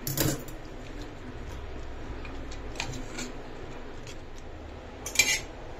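Kitchen utensils and dishes being handled while chocolate is mixed with milk: a few light clinks and scrapes, with a louder clatter about five seconds in.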